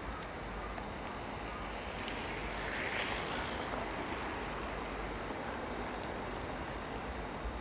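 Distant trains moving on the tracks: a steady outdoor rumble and hiss that swells briefly about three seconds in.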